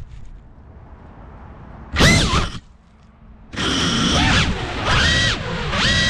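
FPV quadcopter's brushless motors whining in throttle bursts: a short loud punch about two seconds in that sweeps up and down in pitch, a brief near-silent dip, then repeated bursts from about three and a half seconds in, the last held at a steady pitch. A few sharp clicks at the very start.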